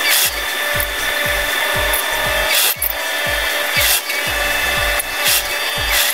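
Industrial sewing machine running steadily, stitching a zipper into a thick backpack, over a steady beat of low thumps.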